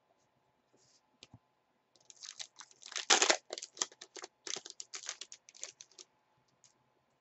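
Foil trading-card pack being torn open and its wrapper crinkled: a quick run of crinkles and rips lasting about four seconds, loudest about three seconds in.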